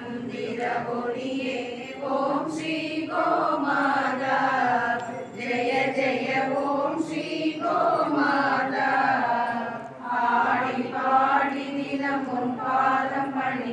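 A group of women's voices chanting a devotional hymn together in unison, in a steady sung-spoken rhythm with brief pauses between phrases.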